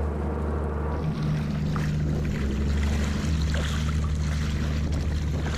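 Coast Guard motor lifeboat's diesel engines running with a steady low hum close by, with water splashing and sloshing at the surface.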